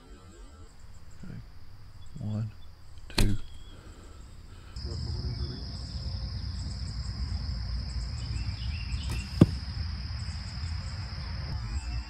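A 40-pound Ferguson longbow shot: one sharp snap of the string as the arrow is released, about three seconds in. Then a steady high insect buzz, and a second sharp snap of the shot heard from 20 yards downrange, past the nine-second mark.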